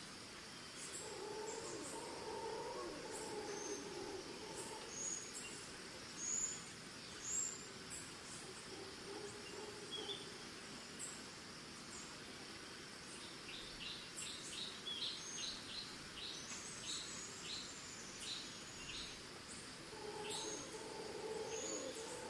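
Costa Rican forest ambience: crickets keep up a steady high trill while birds chirp with short, repeated high calls, including a quick run of notes midway. Distant monkeys give low, wavering calls near the start and again near the end.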